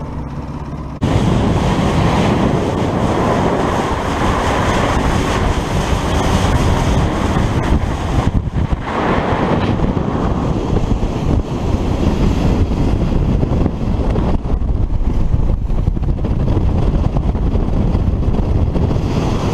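Loud, steady rush of wind buffeting the microphone and water noise from a small 12-foot boat running at speed on a 650 jet ski motor, stepping up louder about a second in.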